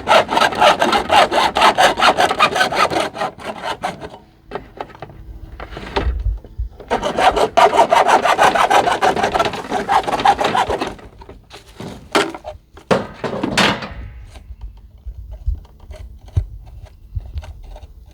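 A hand saw cutting through a rain gutter in rapid back-and-forth strokes, in two spells with a short pause between. A few knocks come near the end of the second spell as the cut finishes.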